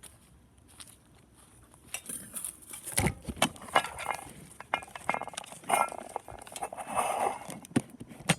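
Handling sounds of airgun pellets being changed: a run of clicks, clinks and rustles that starts about two seconds in.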